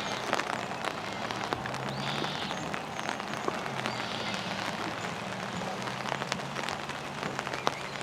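Light rain drizzling on an umbrella overhead: scattered drops tapping irregularly on the canopy.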